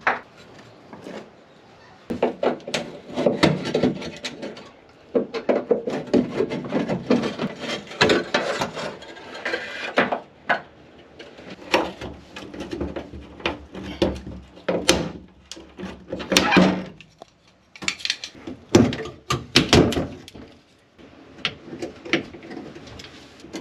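Hand work on a molded plastic bathroom wall and its old hardware: irregular scraping and rubbing with many sharp clicks and knocks as fittings are pried loose and screws are turned out with a flat-blade screwdriver.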